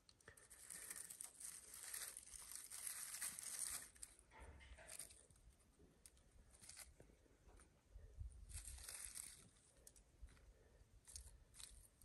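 Faint rasping scrapes of a knife's spine being worked, in bursts: a long run over the first four seconds, then shorter strokes every second or two.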